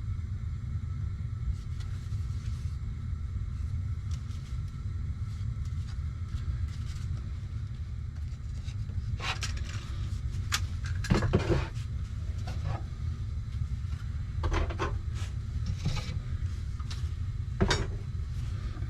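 Scattered knocks and clatter of tools being handled and set into a wooden tool holder, mostly around the middle and a few more later, over a steady low rumble.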